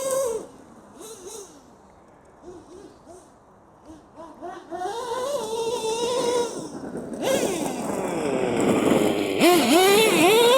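Small nitro RC car engine running and revving, its whine rising and falling in pitch. Faint at first, it gets louder from about halfway through, with quick revs near the end.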